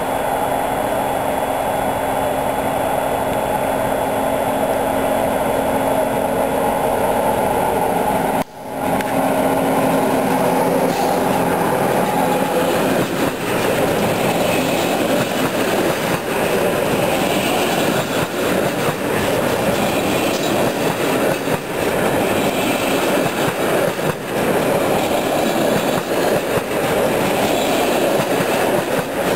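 HŽ series 1141 electric locomotive approaching with a steady hum. About a third of the way in, the sound gives way to a loaded container freight train's flat wagons rolling past close by, their wheels clattering over the rail joints.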